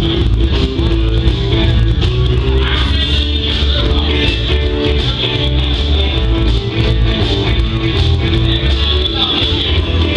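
Live rock-and-roll band playing, with electric guitars, keyboard and drums.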